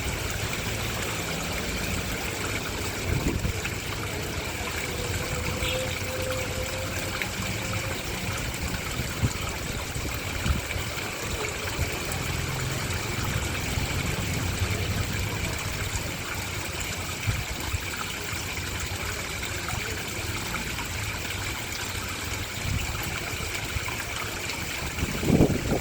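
Garden pond waterfall: water steadily trickling and splashing into a koi pond. A brief low thump of noise comes near the end.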